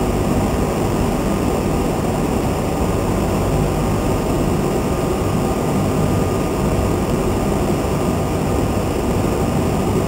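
Industrial microwave conveyor-belt dryer running: a steady low mechanical hum and rush of machine noise, unchanging throughout.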